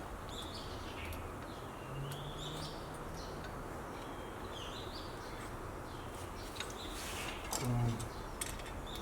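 Small birds chirping on and off in short rising and falling calls, with a few light clicks of small brake parts (shoe, shim and retaining clip) being handled, and a brief low hum near the end.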